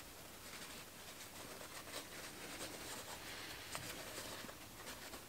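Faint rustling and scratching of a paper towel rubbed over a small removed capacitor, with a few light ticks.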